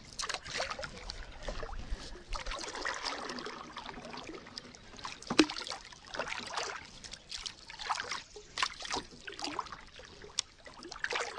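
Kayak paddle strokes: the double-bladed paddle dipping and pulling through the water stroke after stroke, with splashing and water trickling off the blades.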